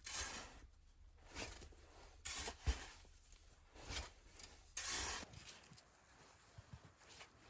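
Irregular crunches in deep snow, about one a second, with a sharp click near the middle, growing quieter in the last couple of seconds.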